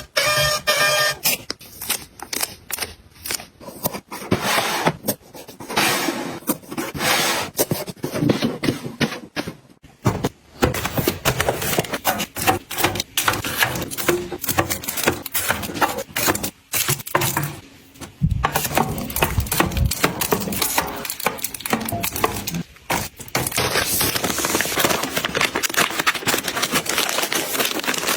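Household items being handled and set down: a busy run of clicks, taps and rustling.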